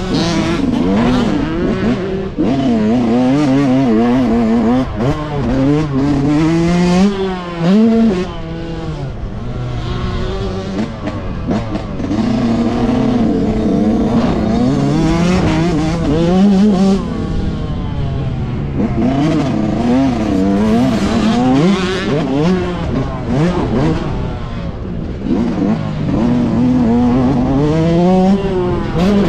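Yamaha YZ125's two-stroke single-cylinder engine ridden hard round a motocross track, its revs climbing and dropping again and again, heard close from the rider's helmet.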